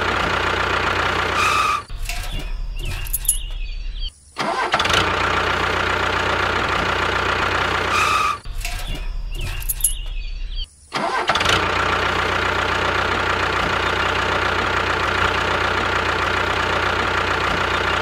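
A steady engine running sound, like a small tractor motor, cut off abruptly twice by short breaks with brief dropouts.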